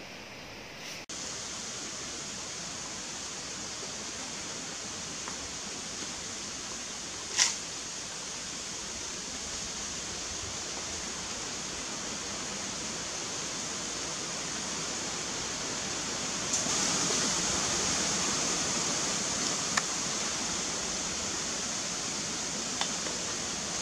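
Steady hiss of flowing creek water, getting a little louder over the last few seconds. A single sharp snap comes about seven seconds in, with a couple of faint clicks near the end.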